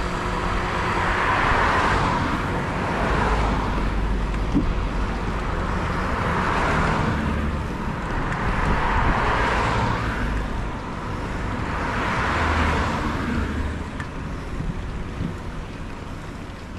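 Wind rushing over the microphone of a bike-mounted camera on a fast road ride, with tyre and road noise underneath. The rush swells and fades several times.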